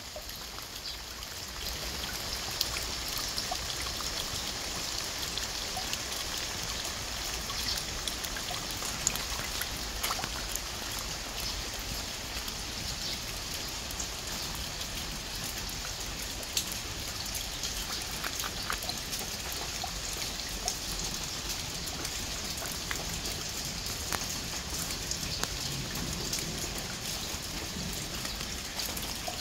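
Steady rain falling on a garden: an even hiss, with many small drops ticking.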